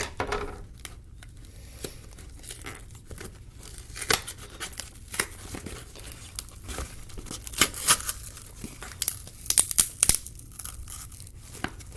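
Packaging being torn and pulled open by hand: irregular rips and crinkles as the shipping package resists opening.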